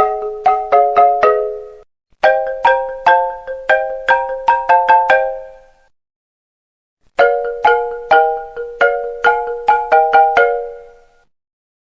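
iPhone ringtone: quick runs of bright, marimba-like notes in chords, played as three phrases with short silences between them, about two seconds in and again around six to seven seconds in.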